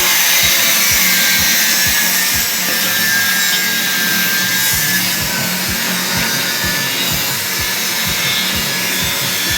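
Steady grinding, rubbing noise of power-tool work on metal parts, with a low knock repeating about three times a second.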